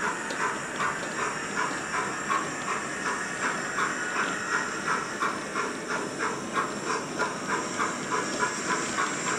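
Zimo sound decoder in a Bachmann 9F model steam locomotive, played through an Ice Cube speaker in the tender, giving a steady beat of exhaust chuffs, about three a second, over a continuous steam hiss while the loco runs at a steady slow speed with its train.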